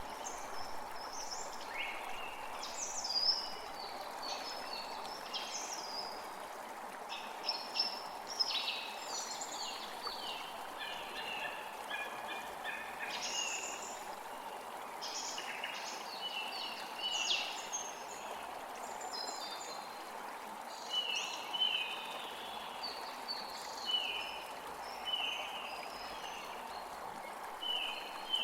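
Creek water flowing steadily, with several birds calling and singing over it in many short, high chirps and phrases.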